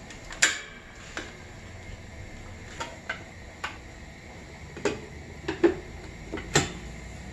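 Sheet-steel cover of an Eaton electrical enclosure being fitted and pressed into place by hand: a series of light metal clicks and knocks, the loudest about half a second in and several more close together near the end.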